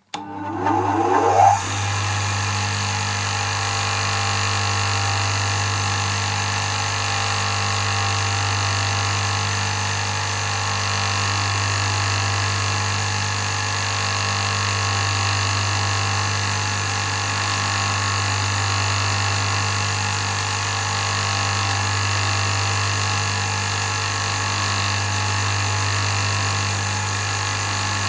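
Bench buffing wheel machine switched on: its motor spins up with a rising whine over about a second and a half, then runs at a steady speed with a strong, even hum.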